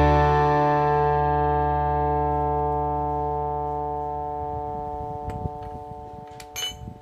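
Background music: one held chord rings out and slowly fades away, with a few faint clicks near the end.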